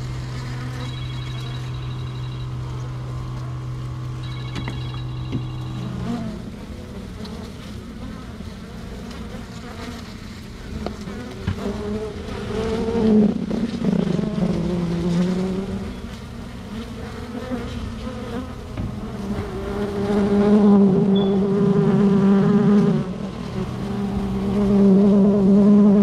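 Honeybees swarming over their exposed comb, buzzing close to the microphone in a wavering drone that swells louder several times, most strongly in the last few seconds. A steady hum lies under the first six seconds and then stops.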